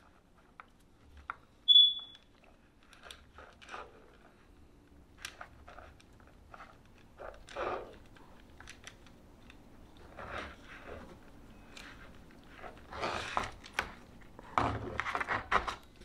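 Small rustles and clicks of stranded wires and plastic harness connectors being handled and twisted together by hand, with louder handling near the end. A single short high beep sounds about two seconds in.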